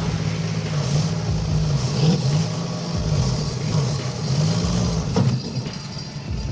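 A heavy diesel machine's engine running under changing load, its pitch rising and falling several times.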